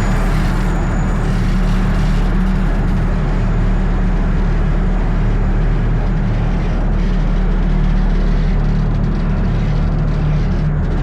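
An engine running steadily under a loud, even rush of wind noise.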